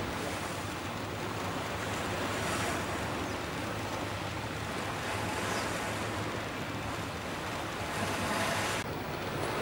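Outdoor wind and water noise: a steady rushing hiss of wind on the microphone and waves, swelling a little every few seconds over a faint steady low hum. Near the end the higher hiss cuts off abruptly.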